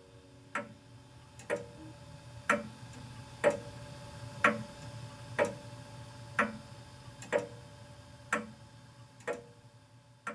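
Steady ticking, about one tick a second, over a faint low hum. The ticks are loudest in the middle and fade somewhat near the end.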